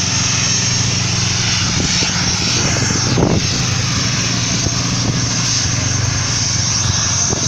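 Aircraft engines running loud and steady, a low hum under a broad rush of noise.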